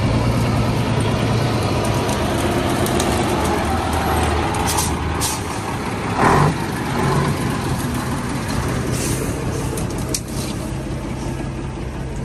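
Heavy truck engine running steadily as the truck drives, with a brief louder burst of noise about six seconds in.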